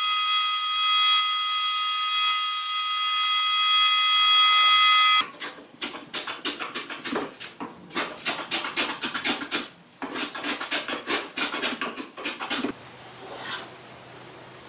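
A benchtop power tool running with a steady high whine, cutting off abruptly about five seconds in. Then fast scraping strokes on wood, like hand rasping or sanding, which stop about two seconds before the end.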